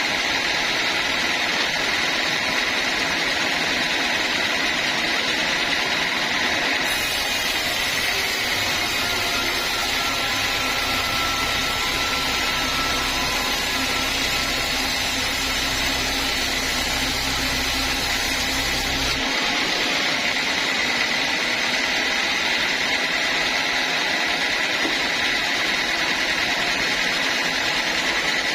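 Sawmill saw machinery running steadily with a constant whine. For a stretch in the middle a deeper, heavier sound joins in, then stops abruptly.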